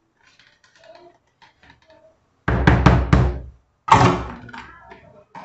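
A spoon knocked several times against a mixing bowl to shake off a spoonful of butter, then one more heavy knock that dies away; faint small clicks of the spoon working in the butter tub come first.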